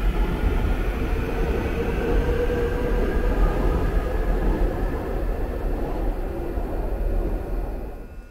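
Seoul subway electric train running, with a heavy rumble under a motor whine that slowly falls in pitch as the train slows; it cuts off suddenly near the end.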